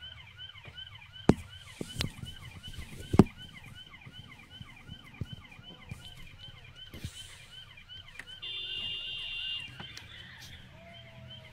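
Police car siren on a fast yelp: a rising wail repeating about four times a second. Two sharp knocks come through it, about a second and three seconds in, the second being the loudest sound. Near the end a steady higher tone sounds for about a second.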